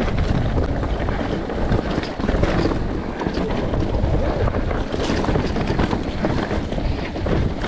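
Enduro motorcycle being ridden off-road, its engine noise mixed with heavy wind buffeting on the microphone.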